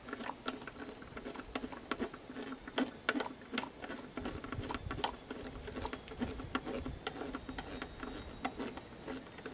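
A hand screwdriver driving a screw into a string trimmer's plastic line guard, making a string of small, irregular clicks and scrapes.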